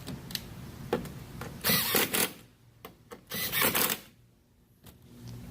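Ratchet wrench clicking in two quick bursts as the tail lamp's 10 mm nuts are run back on, with a few single clicks before them.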